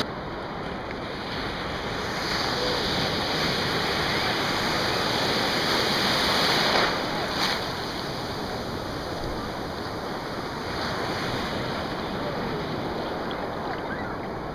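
Ocean surf: waves breaking and foam washing through the shallows, a steady rush that swells and eases, loudest in the first half.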